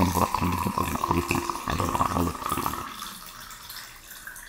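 Water poured in a thin stream into a drinking glass, splashing and bubbling as the glass fills. It grows quieter about three seconds in.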